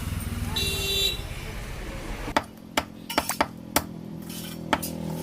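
A vehicle engine running with a short horn beep about half a second in. A little over two seconds in, the engine sound gives way to a run of sharp, irregular knocks.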